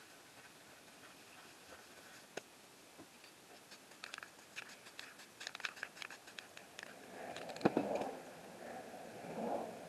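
Spray-paint cans and painting materials being handled: scattered light clicks and taps, then louder rustling from about seven seconds in, with one sharp knock in the middle of it.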